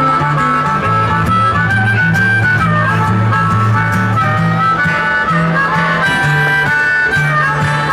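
Blues harmonica solo over guitar accompaniment, with a steady walking bass line underneath.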